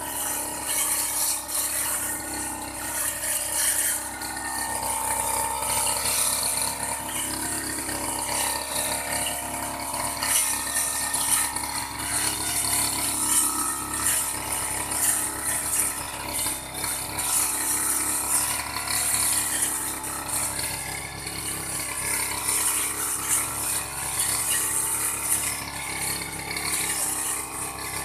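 Old Aldo brush cutter running steadily while cutting grass, a dense high whirring hiss with a rapid rattling edge.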